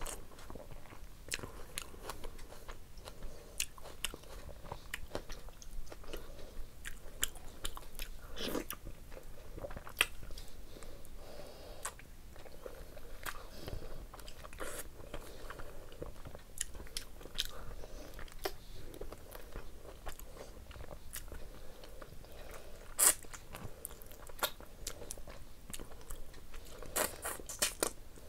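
A person chewing and biting meat off the bone, eating curry and rice by hand, close to the microphone. Many short, sharp, irregular mouth clicks, with a few louder ones in the last part.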